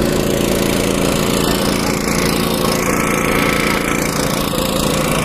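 Diesel engine of a large truck running steadily close by, with a fast, even low pulse.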